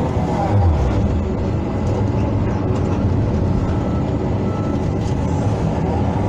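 Hydraulic excavator's diesel engine running steadily under load as the machine works, with hydraulic whine and the machine's mechanical noise.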